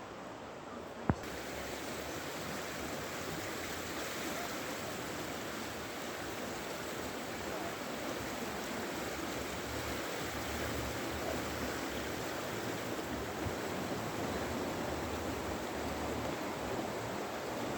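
Swollen river in flood, its water rushing steadily, with a single sharp click about a second in.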